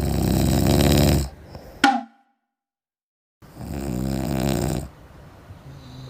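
A person snoring loudly: a long rasping snore, a short sharp falling sweep, a second of dead silence, then another long snore.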